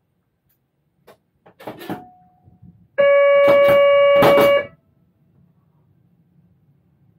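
Train horn sounded once, a steady chord held for about a second and a half, warning a level crossing ahead. A few clicks and knocks come just before it.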